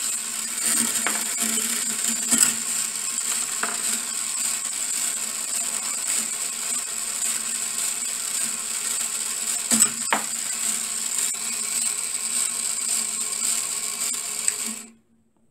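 Marble machine running: a small DC motor drives the lift with a steady whine while steel balls roll along the brass-wire spiral track, with a few sharp clicks as balls drop or strike the rails. The sound cuts off abruptly near the end.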